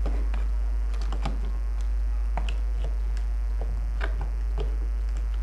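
Irregular light plastic clicks and taps of a photocell relay module being handled and fitted into place on its mounting rail, over a steady low hum.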